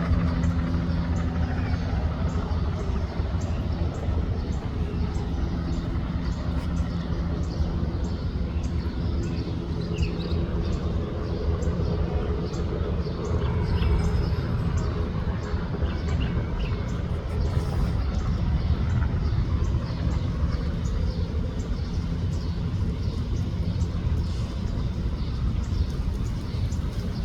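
Bell 206 helicopter's turbine engine and rotor, a steady low rumble with a droning hum.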